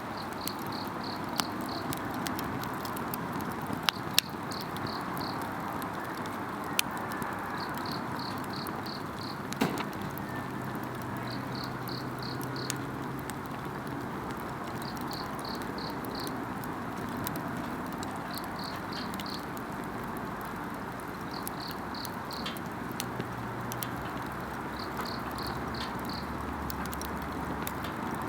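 Wood campfire crackling with a few sharp pops over a steady hiss, while an insect chirps in short trains of about five high pulses every two to three seconds.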